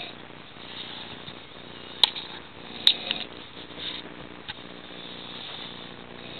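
A man snoring heavily in a deep sleep, passed out after drinking alcohol. Two sharp clicks come about two and three seconds in.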